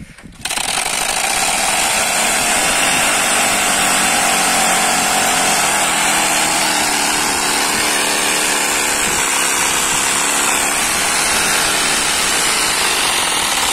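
A bicycle's homemade 'silencer', a strip cut from a plastic bottle fitted at the rear wheel, rattling continuously as the wheel spins. It makes a loud, steady, engine-like buzz meant to imitate a KTM motorbike's exhaust. It starts about half a second in.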